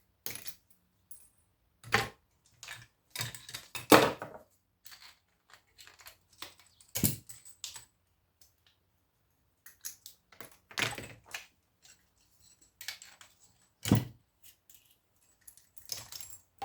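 Scrap metal pieces being handled and sorted by hand: irregular metallic clinks, rattles and clunks as aluminium and copper parts are pulled apart and tossed aside, with several louder knocks spread through.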